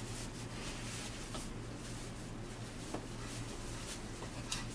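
Quiet room tone: a steady low hum with a few faint clicks, one about three seconds in and another near the end.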